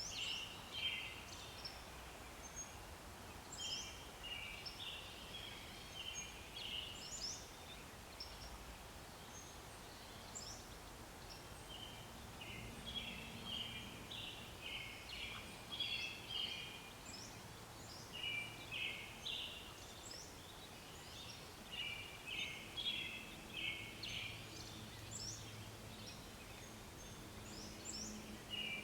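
Mallard ducklings peeping: bursts of short, high, rapid peeps repeated every second or two, with brief pauses between the bursts.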